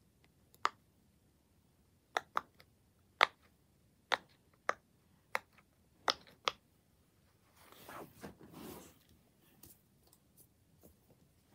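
Silicone push-pop fidget toy (pop-it) being popped by a finger, bubble by bubble: about nine sharp pops, irregularly spaced, followed by a brief soft rustle.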